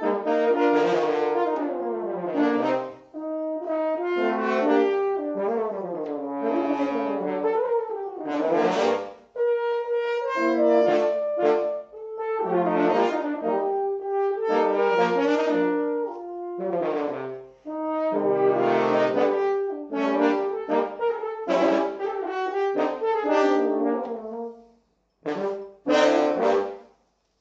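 Quartet of four French horns playing a tango in four-part harmony, closing with two short chords near the end.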